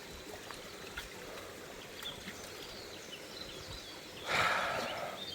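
A small brook trickling steadily, with a short louder rush of noise about four seconds in.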